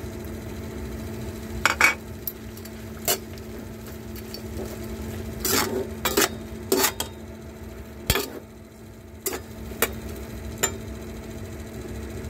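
Metal slotted spatula clinking and scraping against a stainless steel pan in irregular strokes while fried meat and vegetables are stirred into sweet and sour sauce. A steady low hum runs underneath.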